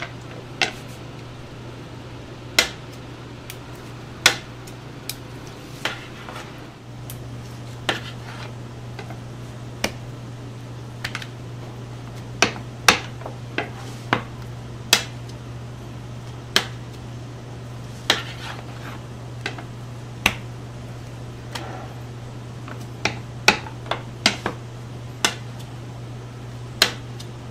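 Metal spatula and plastic fish cake mould knocking and scraping on a plastic cutting board: sharp, irregular clacks about every second or two. A steady low hum runs underneath and grows slightly louder about seven seconds in.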